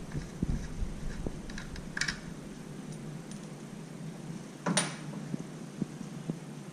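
Light clicks and taps of metal fittings and a tool being handled as the vacuum hose is taken off a freeze dryer's vacuum pump, with one short, sharper noise nearly five seconds in.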